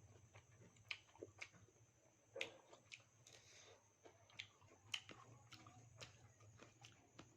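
Faint eating sounds: irregular soft clicks and smacks of chewing and biting, over a faint steady hum.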